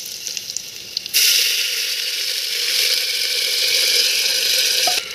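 Fish curry sizzling and bubbling in a hot pan: a loud, steady hiss that starts suddenly about a second in and cuts off abruptly near the end.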